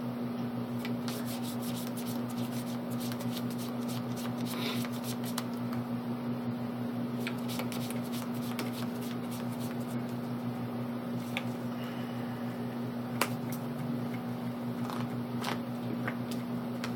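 Trading cards being handled and laid on a table: scattered light taps and flicks of card stock, over a steady low hum.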